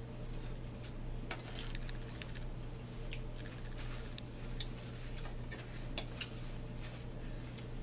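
Eating at a table: scattered small clicks and taps of cutlery on a plate along with chewing, over a steady low hum.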